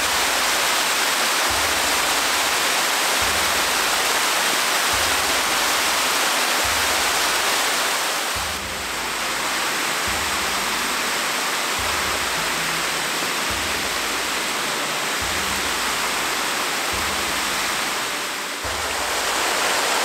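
Waterfall on a mountain stream: water falling and rushing over rock steps in a steady, full hiss. It eases off slightly twice, about 8 and 18 seconds in.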